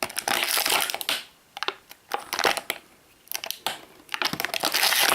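Empty plastic Shopkins blind bags being handled and crumpled together, crinkling in bursts: one in the first second, a short one midway, and a longer one near the end.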